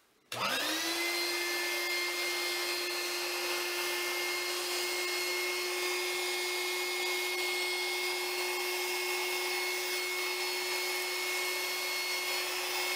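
Small electric air pump, used as the vacuum pump of a DIY filtration setup, switched on about a third of a second in. It quickly spins up to a steady pitched whine over a hiss as it pulls water through the filter paper.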